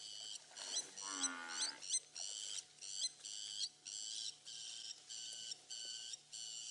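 Blacksmith lapwing giving its repeated metallic 'klink' alarm call, about two sharp notes a second, in steady rhythm. The bird is shouting at and mobbing a Cape buffalo standing near it.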